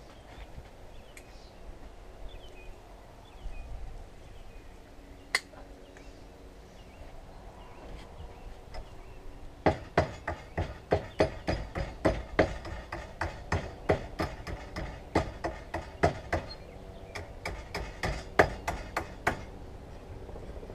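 Hand hammer striking hot steel on an anvil in a quick series of ringing blows, about three a second, forming the slight concave of a small forged gouge over a drift pin. The blows start about halfway in, after a few light clicks.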